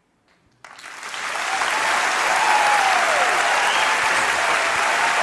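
Large audience bursting into applause after a moment of near silence, about half a second in, swelling quickly to loud, steady clapping with cheers and whoops over it.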